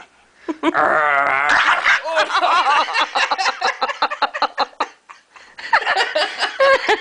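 Pekingese growling and snarling in quick, rattling bursts, with a short break about five seconds in. The dog is angry and guarding his bone as it is taken from him.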